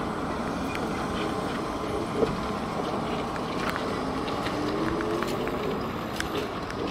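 Trolleybus driving through a turn and pulling away: steady road and tyre noise, with a faint electric whine that rises in pitch about five seconds in as it accelerates. A single sharp click sounds a little after two seconds.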